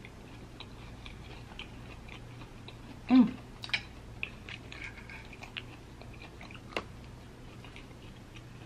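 Close-miked chewing of a green-lipped mussel, with small wet mouth clicks throughout. There is a short vocal sound, falling in pitch, about three seconds in, and a sharp click near seven seconds.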